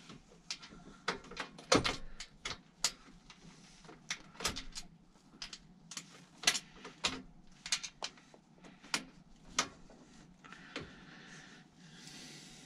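Irregular sharp clicks and taps of a pannier rack's metal bolt and stay being handled and worked against a bicycle frame's mounting eyelet by hand, as the bolt is pushed in at an awkward angle.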